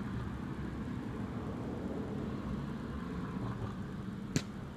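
Steady low outdoor rumble, with a single sharp tap about four seconds in: a thrown plastic blitz ball striking its target.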